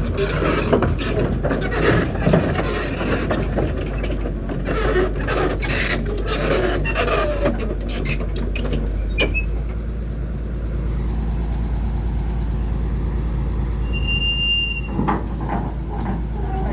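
Cat 320 excavator's diesel engine running as the machine is driven off a lorry, with steel tracks clanking and scraping through the first half. It then settles to a steady engine rumble, and a brief high squeal comes near the end.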